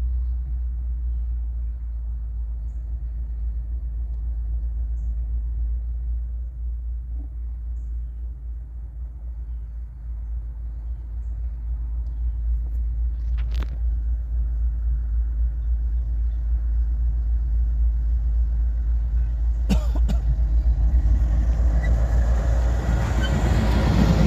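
Diesel switcher locomotive running light, its engine a deep steady rumble that grows louder as it approaches. Two sharp clicks come about halfway through and again near the end.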